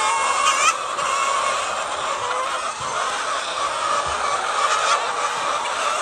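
A flock of laying hens clucking and calling together in a continuous din, with a louder rising call about half a second in.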